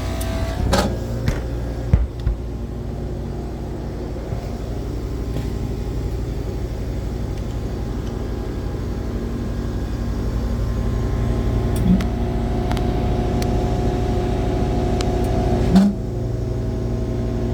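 Commercial rooftop HVAC unit running steadily with a low mechanical hum, with a few light clicks and knocks over it.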